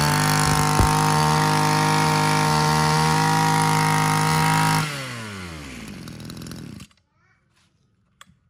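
Small two-stroke brush-cutter engine running at high throttle right after a cold start with the primer bulb and choke. About five seconds in the revs fall away to a quieter idle, then the sound cuts off abruptly, with one small tick near the end.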